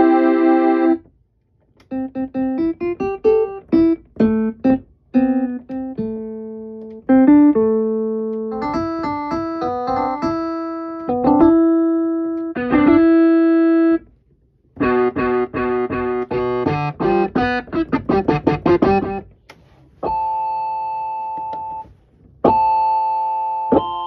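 Electronic keyboard played on one of its instrument voices: single notes and short melodic phrases, each note fading away after it is struck, with a fast run of notes in the middle and sustained chords near the end.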